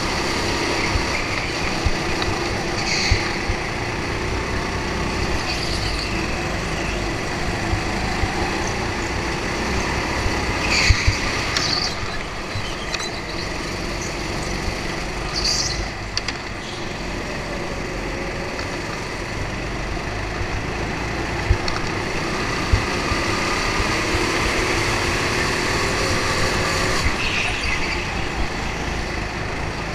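Racing go-kart running flat out, heard from its onboard camera, with other karts nearby. Several short high squeals come through, about five times.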